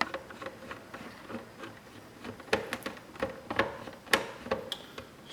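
Phillips screwdriver unscrewing a small screw from a vinyl cutter's front bracket: irregular small clicks and ticks of the driver and screw, a few sharper ones from the middle on.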